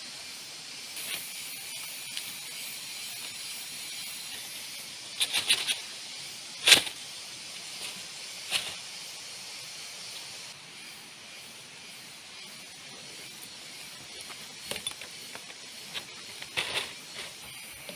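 Steady hiss of heavy rain falling. A few sharp knocks cut through it: a quick cluster of three about five seconds in, the loudest one shortly after, and a few fainter ones later.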